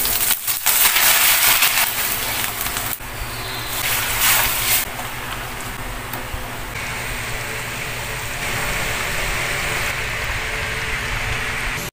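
Mackerel sardines, onion and garlic sizzling and bubbling in a steel wok: a steady hiss that changes abruptly several times between short cooking clips.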